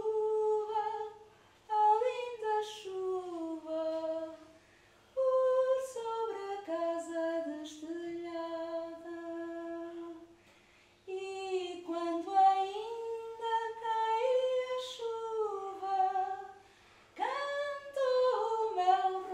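A woman singing a slow, gliding melody unaccompanied, in long held phrases broken by short pauses.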